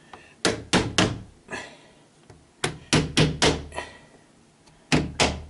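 Sharp knocks on a PVC window frame as a plastic glazing bead is tapped and pressed into its groove to hold the double-glazed unit. They come in quick groups, three, then four, then two, about three a second.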